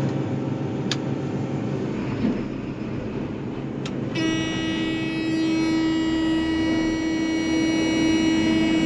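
Combine harvester running steadily, heard from inside the cab. About four seconds in a loud steady tone like a buzzer or horn starts and holds for about five seconds.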